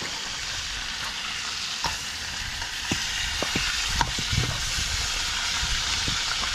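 Fish frying in oil in a pan over a wood fire: a steady sizzle, with a few light knocks as seasoned fish pieces are handled in a steel bowl, mostly around the middle.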